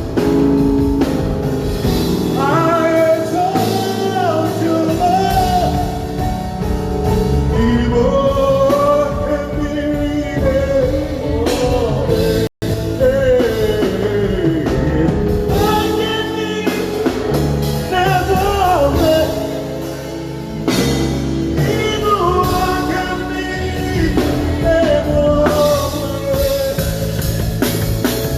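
A live band playing with a lead singer, drum kit keeping the beat under the sung melody. The sound drops out completely for an instant about twelve seconds in.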